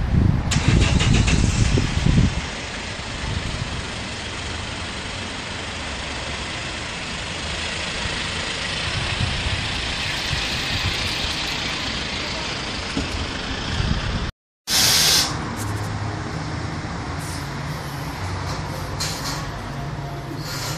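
Street traffic: a vehicle engine rumbles close by for the first two seconds, then a steady hiss of passing traffic. After a sudden cut about fourteen seconds in comes a short loud hiss, then a steady indoor hum with faint low tones.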